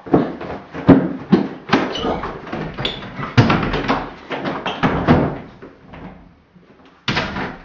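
A rapid, irregular run of loud knocks and bangs, like doors and objects being knocked about, then one more bang about seven seconds in.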